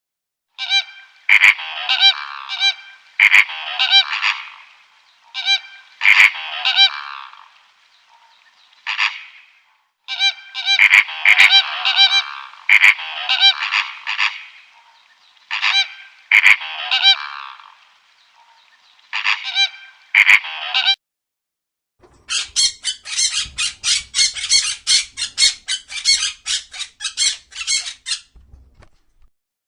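A bird's loud honking calls, repeated in bunches with short pauses. After a brief gap, a different rapid run of sharp, evenly spaced pulses follows, about four a second, for roughly six seconds.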